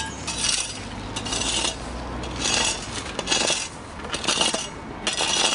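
Spades digging into loose gravel, the blades scraping through the stones in separate strokes about once a second.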